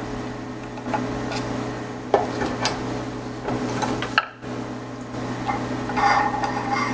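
Scattered small metal clicks and ticks as an Allen key unscrews the screw holding the brass saddle nut on a Sherline mill's Z-axis column, with a cluster of handling clinks near the end as the screw comes out. A steady low hum runs underneath.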